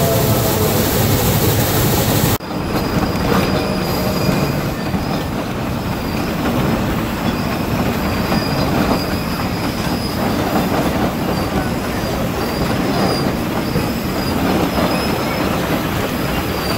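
Shay geared steam locomotive rolling slowly past close by, its wheels grinding on the rails with a thin, intermittent high squeal of flanges on curving track and a clatter from the geared trucks. For the first two seconds, before a cut, a dense steady rush of a working locomotive is heard from on board.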